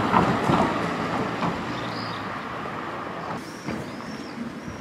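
Street traffic: a motor vehicle passing close, loudest at the start and fading away, with a few short high chirps near the end.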